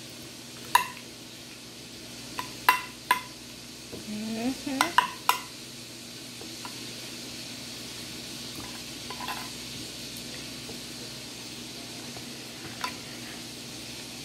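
A spoon clinking and scraping against a glass baking dish as cream of mushroom soup is spread over pork chops. There is a cluster of sharp, ringing clinks in the first five seconds, then softer scraping and one more clink near the end, over a steady hiss.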